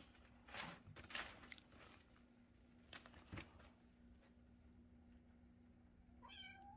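A few soft scuffling rustles, then a kitten gives one short, high mew near the end.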